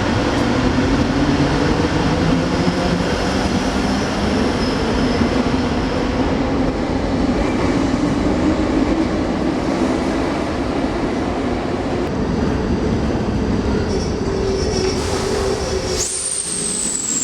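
Berlin city train running on the rails, a steady loud rumble with faint humming tones. About sixteen seconds in the sound changes abruptly and a high, thin tone starts and slowly falls in pitch.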